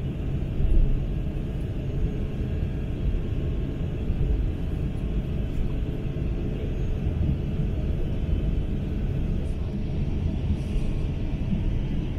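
Steady low rumble of engine and airflow noise inside the cabin of an Airbus A350-900 airliner, even throughout with no distinct events.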